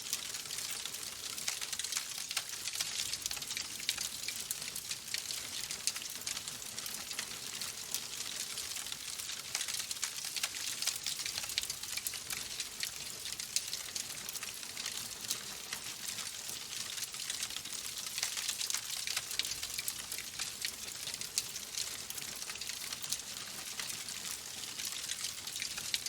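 Wood logs burning in a fireplace: a steady hiss thick with small, fast crackles and pops.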